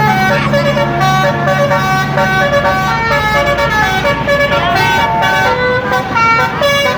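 Tour bus's basuri multi-trumpet telolet horn playing a tune, its notes changing in quick steps, over the bus engine's low drone that fades out about three seconds in.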